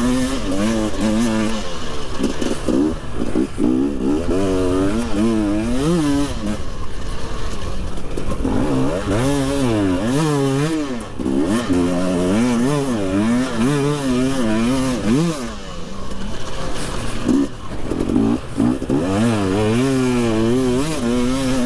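Husqvarna motocross bike engine heard from on board, revving up and falling back again and again as the throttle is opened and closed through the turns and straights.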